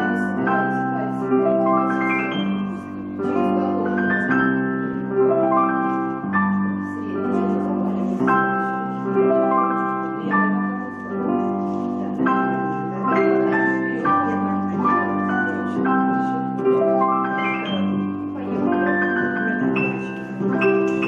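Slow, gentle instrumental music: a melody over held chords, with the bass note changing about every two seconds.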